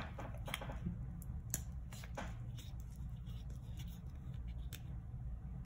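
Scattered small clicks and taps of art supplies being handled at a desk, over a steady low hum.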